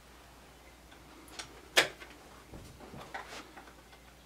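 A few light clicks and taps of a small screw being picked up and fitted by hand, with one sharper click a bit under two seconds in and a cluster of small ticks around three seconds.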